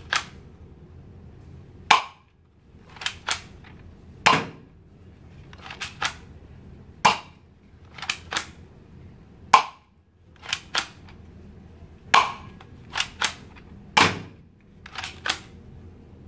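Spring-powered toy Glock 18 BB pistol of ABS plastic, manually cocked, being cocked and fired over and over: a string of sharp plastic snaps roughly every second, several of them in quick pairs.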